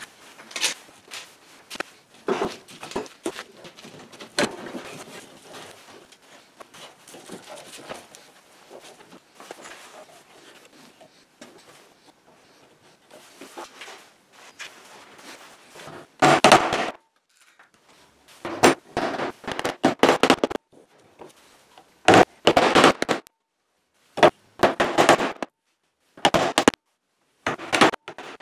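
Steel bar clamps clattering as they are set across a glued-up wooden panel and tightened. After that come several loud bursts of sharp hammer knocks on the clamped boards, each a quick run of strikes, separated by short silences.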